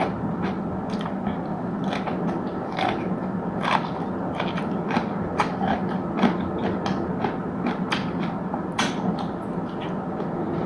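A person chewing and biting food, with many short, irregular crunches and clicks.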